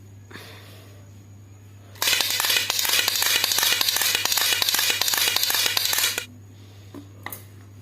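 A toy's mechanism running with a dense, fast clatter of clicks for about four seconds, then stopping abruptly; a couple of faint clicks follow.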